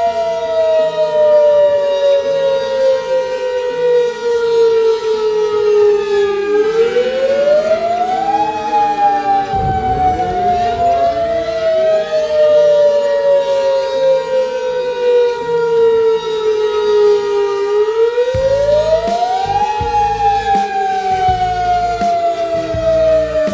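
Tsunami warning siren sounding. Its main tone glides slowly down over about six seconds and then sweeps quickly back up, twice, layered over steady held tones. A low noise comes in underneath about ten seconds in.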